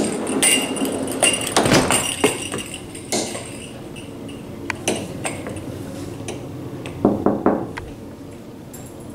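A sliding glass door's metal handle and latch clicking and clanking in the first two seconds, then scattered light metallic clinks and taps, with a short cluster about seven seconds in.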